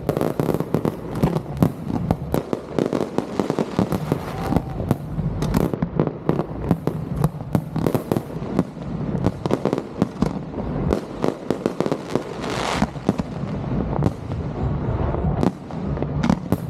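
Fireworks display: rapid, continuous bangs and crackling pops from many shells bursting at once, over a low rumble, with a brief hissing burst about three quarters of the way through.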